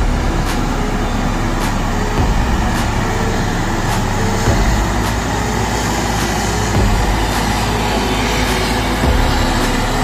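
Volvo motor grader's diesel engine running steadily under load while the grader works its blade through wet earth.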